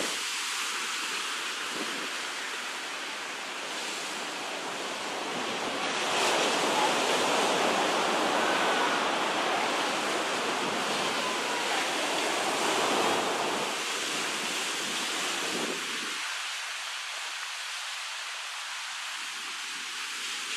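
Small surf breaking and washing up a sandy beach, a steady rushing that swells to its loudest about six seconds in and eases off after about sixteen seconds.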